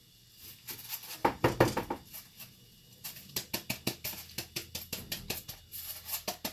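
A run of quick, sharp knocks and taps from a foam paint board being lifted, tilted and knocked against the work table. The knocks come in a dense cluster about a second in, then settle into about four or five a second.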